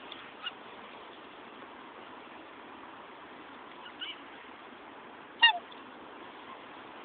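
Black swans making a few short, sharp sounds over a steady background hiss: a faint one just after the start, another around four seconds in, and one much louder one about five and a half seconds in.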